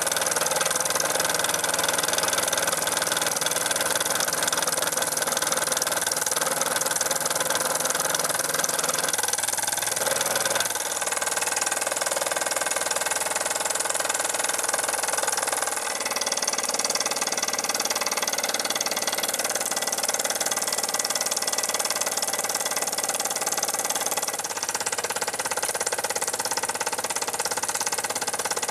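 Unrestored Australian-made Parken toy live-steam engine running steadily at speed, with a rapid even chuffing and a hiss of steam.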